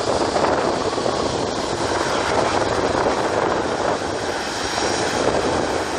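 Air France Airbus A340's four CFM56 turbofan engines running at low thrust as the jet taxis on the runway: a steady jet rushing hum.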